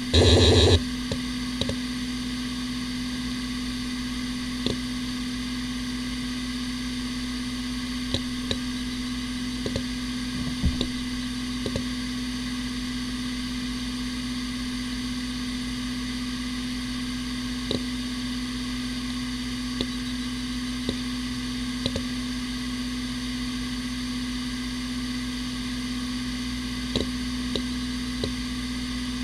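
Hitachi Ultrastar 15K300 15,000 RPM SAS hard drive spinning: a steady hum pitched at its 250-turns-a-second spindle speed, with faint hiss, and a dozen or so single seek clicks scattered through it. A short loud burst sounds about half a second in.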